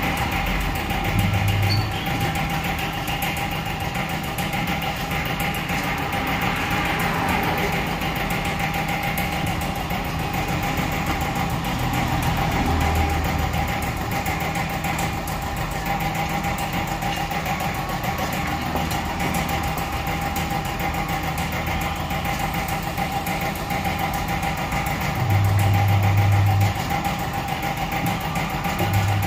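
Electric tyre-changer machine, its turntable motor running in three short bursts of a second or so as a tube-type tyre is worked on the rim, over a steady mechanical hum.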